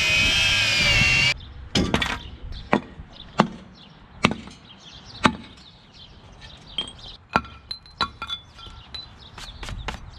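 Background music cuts off about a second in. It gives way to about a dozen sharp metal knocks and clanks at irregular intervals, some ringing briefly, from work on the rear axle and leaf-spring mount of a pickup truck.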